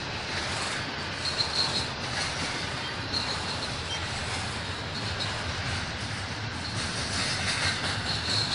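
BNSF double-stack intermodal train's loaded well cars rolling past, a steady rumble of steel wheels on rail, with brief high-pitched wheel squeals a few times.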